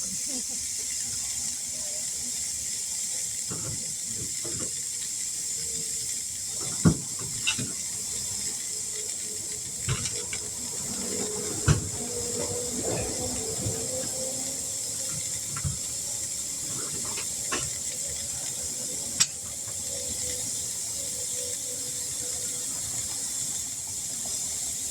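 Air hissing steadily out of a pickup tire through its open valve stem, the valve core removed to deflate it so the bead can be broken and a broken valve stem replaced. A few sharp clicks and taps sound over the hiss.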